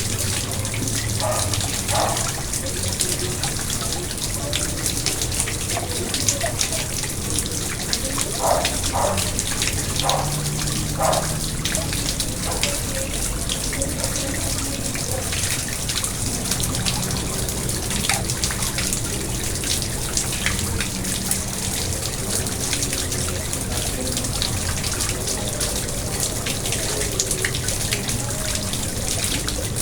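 Water of a garden pond trickling and splashing steadily.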